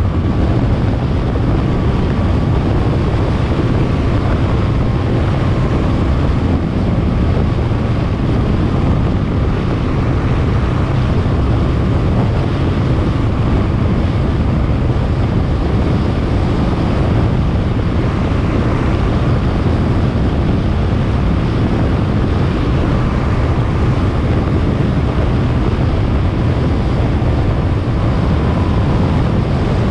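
Steady wind rush buffeting an action camera's microphone while it moves along a road, heavy and low, with road noise under it and a faint steady whine.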